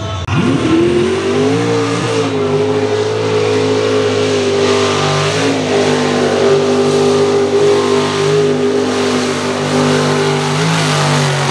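Square-body pickup mud racing truck's engine revving up hard in the first second or so, then held at high revs at full throttle through the mud hole, over a steady hiss of spinning tyres and slung mud.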